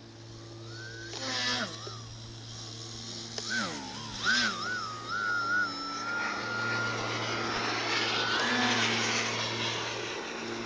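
Electric motor and propeller of a radio-controlled Sbach 342 aerobatic model plane whining, its pitch rising and falling with the throttle. The pitch holds steady for a few seconds midway while the plane hovers nose-up on its propeller, then steps up briefly and falls again.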